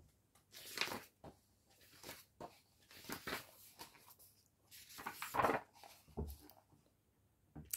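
Pages of a paperback picture book being turned and handled on a wooden board: a few short, soft paper rustles and light knocks scattered through.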